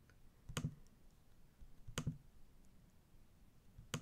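Three sharp computer clicks, about a second and a half apart, selecting files in a list, against faint room tone.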